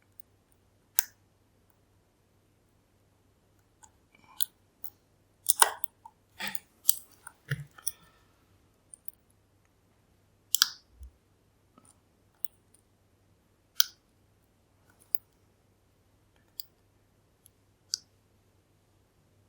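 Sharp, scattered clicks of lock picks working the pins of a Kale Kilit Turkish 10-pin dimple lock during picking, with a busier flurry of clicks about six seconds in.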